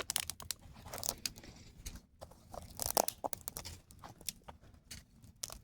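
Dry sticks and leaves crunching and snapping in irregular cracks, as sticks are gathered for the fire.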